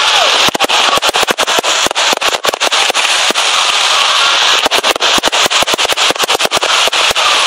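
Aerial fireworks display: shells bursting in a dense, rapid, irregular string of bangs and crackles, many a second, over a steady hiss.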